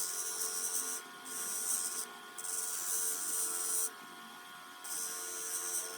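Motor-driven fiber wheel spinning with a steady hum while metal sockets are pressed against it. It makes a hissing scrub in four passes, each about a second long, with short breaks between.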